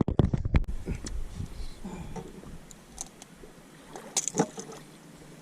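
Handling noise in a bass boat as a freshly landed bass is dealt with: a quick run of low thumps and knocks in the first second, then scattered clicks and light knocks.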